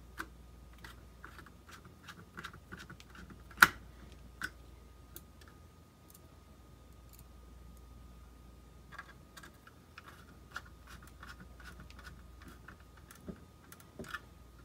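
Small screwdriver turning tiny screws into the Hubsan Zino drone's main board: runs of faint clicking and ticking, with one sharp click about three and a half seconds in.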